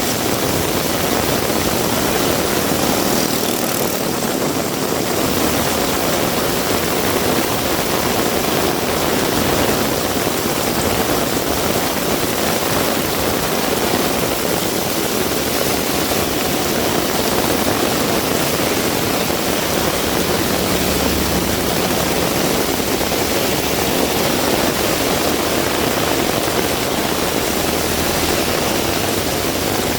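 Heavy rain falling steadily, a dense, unbroken hiss of rainfall.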